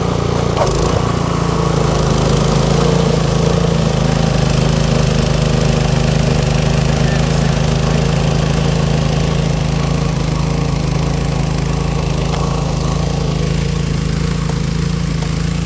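Cub Cadet two-stage snow blower engine running steadily, with a single short knock about a second in.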